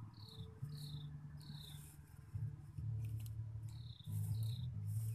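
Short high chirps, each falling in pitch, repeating roughly every half second to a second, over a low droning hum that shifts between pitches.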